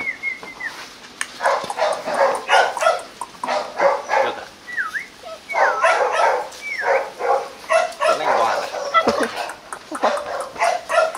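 Rottweiler puppies yapping and yipping in rapid short bursts, with several quick high whines that dip and rise in pitch. The puppies are hungry at feeding time and keep pestering.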